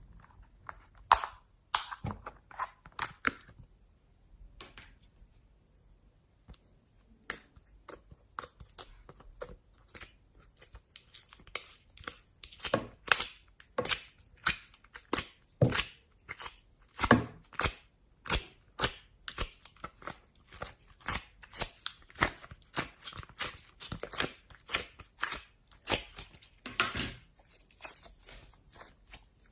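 Slime being squeezed and pressed by hand, giving sharp crackles and pops. They come a few at a time at first, then keep on at about one or two a second.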